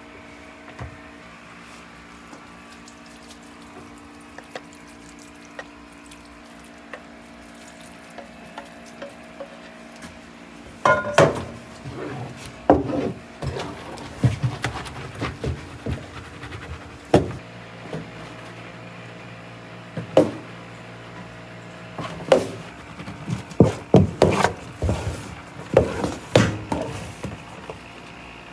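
Wooden rice paddle cutting and turning freshly cooked sushi rice in a wooden hangiri tub, with irregular knocks and clatters of the paddle against the tub starting about eleven seconds in. Before that there is only a steady low hum.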